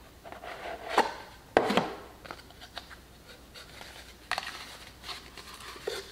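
A small cardboard gift box slid open by hand and a cloth dust bag unwrapped: soft rubbing and rustling with a few sharp clicks, the loudest a little over a second and a half in.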